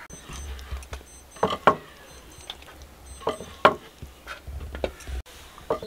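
Kitchen knife cutting beef kidney on a wooden chopping board: irregular sharp knocks of the blade striking the board, two pairs of them louder than the rest.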